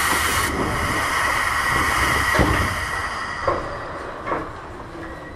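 Eidan 6000 series electric train at a station stop: a loud hiss of compressed air that cuts back about half a second in, then fades away over the next few seconds over a steady high tone.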